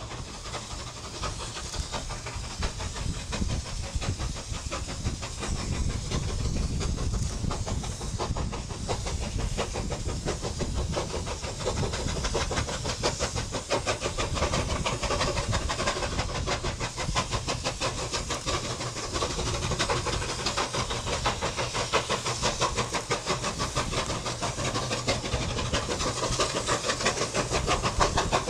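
Two QJ-class 2-10-2 steam locomotives working hard upgrade in tandem, their exhaust beats merging into a fast, steady chuffing over a low rumble, growing slightly louder towards the end.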